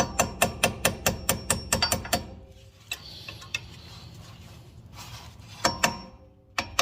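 Hammer tapping a punch to drive the lower brake pad retaining pin out of a Brembo brake caliper. It goes as quick, ringing metal-on-metal taps, about five a second for two seconds, then after a pause a few more taps near the end.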